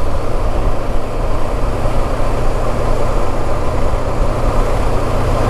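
Motorcycle riding at a steady speed: the engine's low, even running mixed with wind and road noise on the bike-mounted camera.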